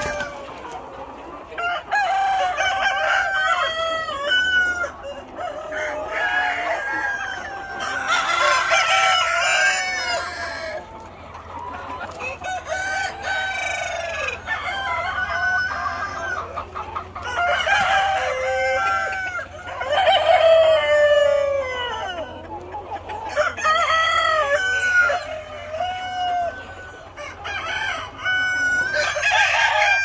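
A large flock of free-range native chickens: several roosters crowing one after another and over each other, with hens clucking underneath.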